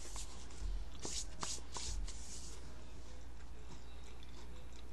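A few quick rustling swishes in the first two and a half seconds from hands moving and rubbing close to the microphone, over a steady low hum.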